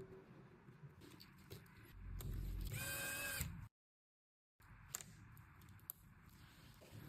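Small clicks and taps of hand tools working on a phone during a screen repair. About two seconds in there is a louder low rumble, then a short pitched whine, and the sound then drops out completely for about a second at an edit.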